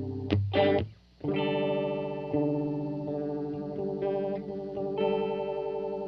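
Electric guitar loop played through an Electro-Harmonix The Worm modulation pedal into amps: sustained chords with a wavering, swirling modulation. The sound cuts out briefly about a second in, then fresh chords ring in.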